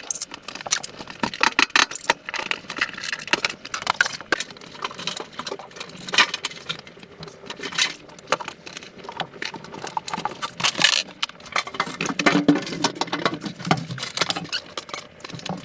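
Irregular clinks, clicks and knocks of hand tools and metal parts being handled as a washing machine is taken apart, busier near the end.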